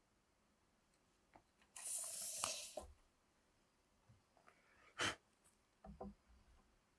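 A steel tape measure's blade reeling back into its case with a brief whir about two seconds in, ending in a snap as it locks home. Later come a single sharp click and a few soft knocks of tools laid on the wooden board.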